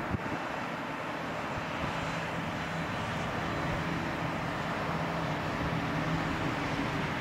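Claas Jaguar self-propelled forage harvester chopping grass from a swath, with a tractor and silage trailer running alongside: a steady heavy engine drone.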